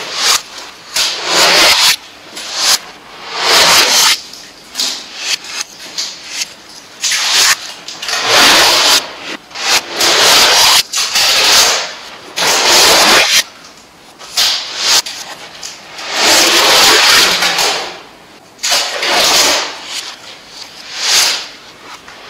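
Adhesive tape being pulled off the roll again and again, each pull a rasping tear lasting about a second, with short pauses between.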